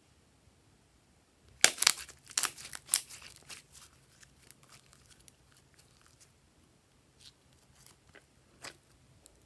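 Glossy slime being stretched and squeezed by hand, giving a burst of sticky crackling and popping about a second and a half in, then scattered faint pops.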